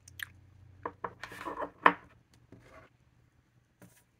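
Small plastic fountain pen ink sample vial being handled and its cap twisted off: a run of light clicks and rubbing, the sharpest click a little under two seconds in, with a few fainter clicks after.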